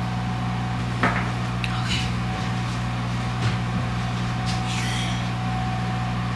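A steady electrical hum from a running appliance, with a few short clicks and knocks of objects being handled, the sharpest about a second in.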